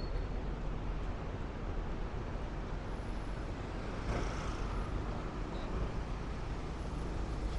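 Busy city street traffic: vehicle engines running and tyres on the road as a steady low rumble, with a brief hiss about four seconds in.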